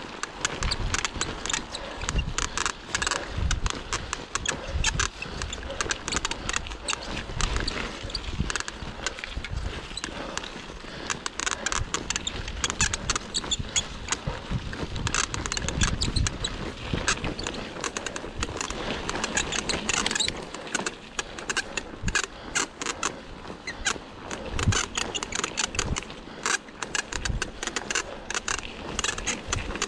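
Cannondale Scalpel mountain bike with a Lefty fork rattling and clicking constantly as it is ridden fast down a rough bike park trail, with uneven gusts of wind rumbling on the microphone.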